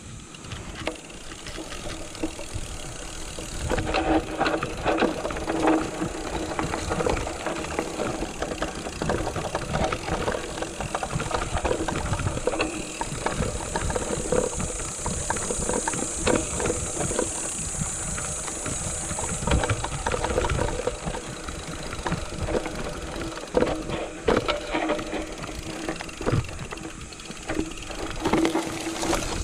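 Mountain bike clattering and rattling continuously as it rolls over a rough, rocky trail, with many small knocks from the frame and parts.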